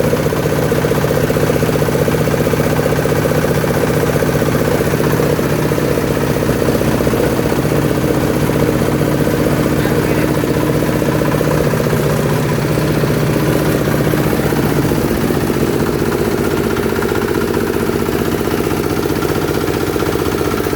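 Cocopeat grinding machine running steadily with a constant engine-like drone, its note shifting slightly about three-quarters of the way through.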